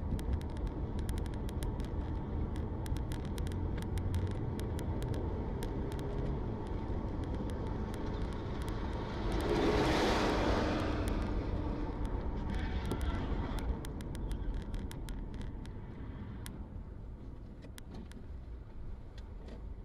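Car driving at highway speed, heard from inside the cabin: steady engine and tyre noise, with a rushing swell that builds and fades about halfway through. Faint scattered clicks sit on top.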